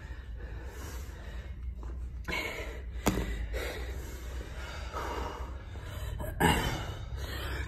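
A person breathing hard after kettlebell lifting, with several heavy exhalations, the loudest near the end, over a steady low hum. A sharp click about three seconds in.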